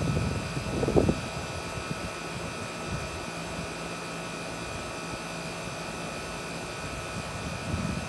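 Outdoor air-conditioner condenser unit running steadily, its fan and compressor making a constant hum with several fixed tones. A brief low rumble rises over it about a second in.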